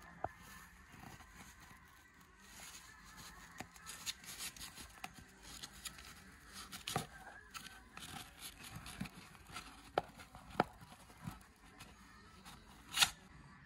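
Pomeranian nosing and nibbling an empty cardboard kitchen-roll tube: faint scattered clicks and crackles of cardboard with soft snuffling through the nose, and one louder short rasp near the end.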